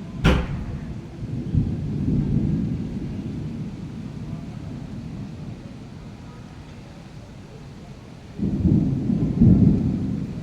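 Thunder: a sharp, close crack about a quarter second in, followed by low rolling rumbles, then a louder deep rumble near the end.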